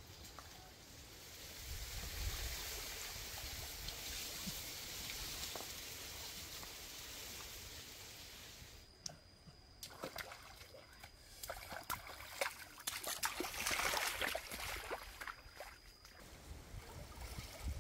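Shallow rocky stream trickling as an even hiss. After a sudden break about nine seconds in, it is overlaid by a run of irregular splashes and crackles.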